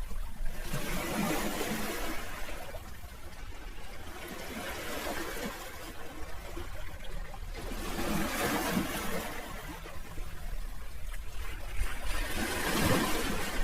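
Sea waves washing onto the shore, the surf swelling and fading about every four seconds, four times.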